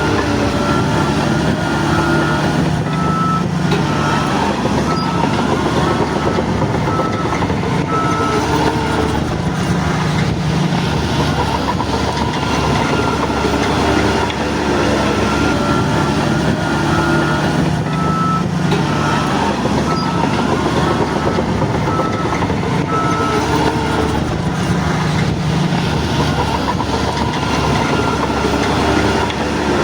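Crawler bulldozer at work: its diesel engine runs under load, the pitch rising and falling, over a steady clatter of tracks. A backup alarm beeps in two stretches, early on and again past the middle.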